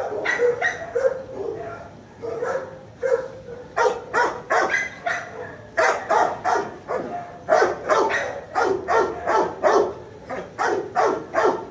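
Dogs barking and yelping in a shelter kennel block, the barks coming in fast runs of about three a second through the second half. Boco, the dog on screen, is quietly chewing a bone, so the barking is other kennel dogs.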